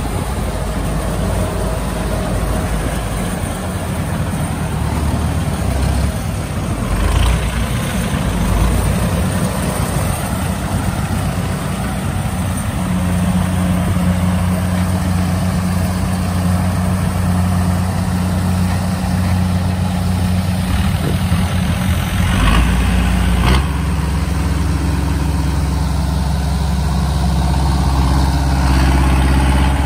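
Kubota DC-60 combine harvester's diesel engine running steadily. Its drone grows fuller about halfway through, and a couple of sharp knocks come about three-quarters of the way in.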